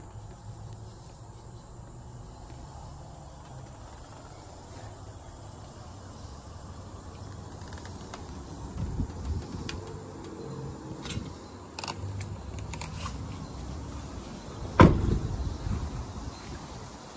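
Clicks and handling noise while getting out of the truck cab, then a heavy thud as the International MV's cab door is slammed shut near the end.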